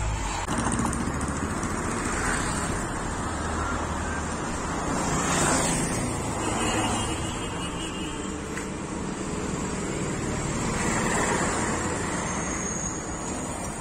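Road traffic going by: vehicles pass one after another, swelling and fading, with the loudest pass about five seconds in.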